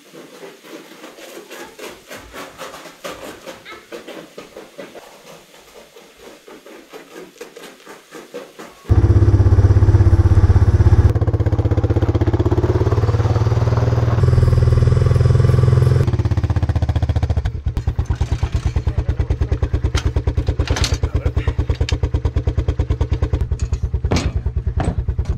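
Quad bike (ATV) engine running loud and steady, coming in abruptly about nine seconds in and later settling into an even, pulsing idle. Before it, only quieter knocks and handling sounds.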